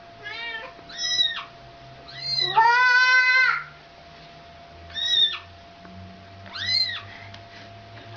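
Kitten mewing: about six short, high calls with a rise-and-fall in pitch, and one longer, louder meow about three seconds in.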